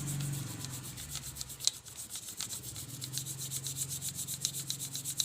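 Hand scrubbing on a motorcycle engine block: quick, even back-and-forth scrubbing strokes, several a second.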